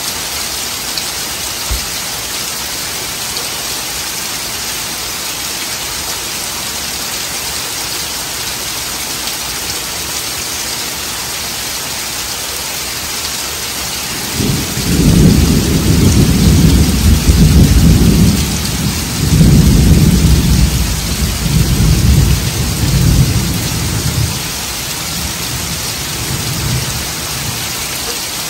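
Heavy rain falls steadily on foliage and ground. About halfway through, a long roll of thunder comes in, rumbling low in several surges and dying away over about twelve seconds.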